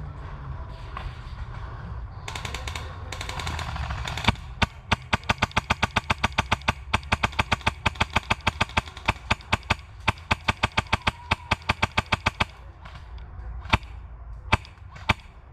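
Airsoft gun firing a long, steady string of shots at about five a second for some eight seconds, then three single shots near the end.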